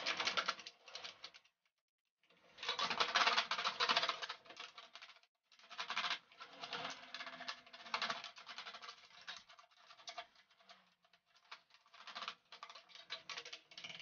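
Stiff brush scrubbing dust out of a desktop computer's metal case and grilles: rapid scratchy ticking of bristles on metal, in bursts with short pauses about two seconds in and again around five seconds.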